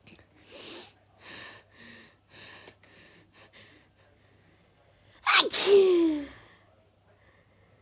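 A person sneezing: a run of short, soft, breathy noises, then one loud sneeze about five seconds in that ends in a voiced cry falling in pitch.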